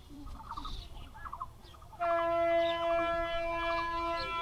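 Train horn sounding one long, steady blast that starts abruptly about halfway through.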